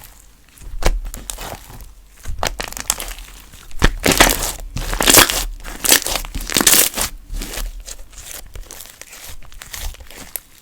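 Galaxy slime worked by hand, giving crackling, clicking and squelching pops, densest and loudest in the middle.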